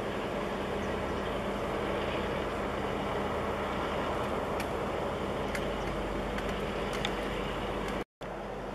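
Distant diesel-electric locomotive (Taiwan Railways R100 class) running with a steady engine hum as its train moves slowly past, with a few faint clicks. The sound cuts out for a moment near the end.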